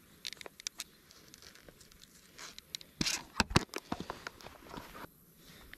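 Close handling of a plastic fly box and the flies in it: scattered small clicks and rustles, with a quicker run of louder clicks about three seconds in.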